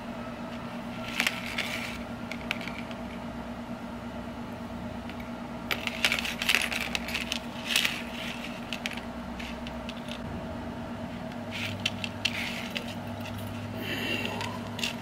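Small metallic clicks and taps of a fishing hook and wire being handled on a tabletop while a soft plastic bait is rigged. They come in a few short clusters, over a steady low hum.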